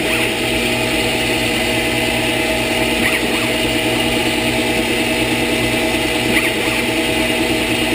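CNC-converted Wabeco D2000 benchtop lathe running steadily through a G76 threading cycle in 6061 aluminium, its motor humming and whining. A short higher chirp recurs about every three seconds.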